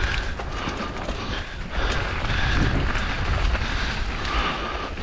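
Mountain bike rolling fast down a dirt singletrack: tyres on dirt and loose stones, with scattered rattles and clicks from the bike. Heavy wind rumble on the microphone runs underneath.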